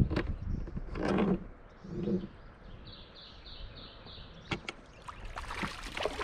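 Hooked fish splashing and thrashing at the surface beside the boat as it is played in on a fly rod. There is a heavy splash at the start and another about a second later, then a burst of surface splashing near the end as the landing net goes into the water.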